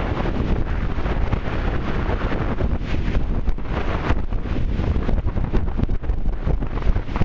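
Wind buffeting the microphone aboard a catamaran sailing fast: a loud, unsteady rumble. Water rushes along the hulls underneath it.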